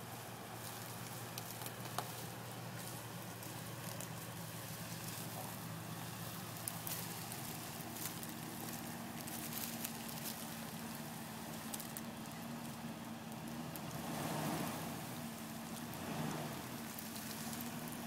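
Jeep Wrangler engine idling with a low, steady hum, under scattered light crackles and ticks. There are two brief swells in the sound, about fourteen and sixteen seconds in.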